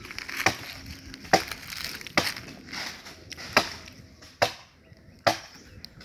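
Heavy blade chopping into palm-tree wood: six sharp blows at a steady pace of a little under one a second.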